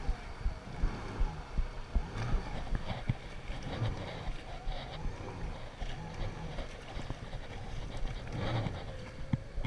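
Jet ski running fast over choppy sea: rushing water and the hull thumping on the chop, about two to three thumps a second, easing off after about four seconds.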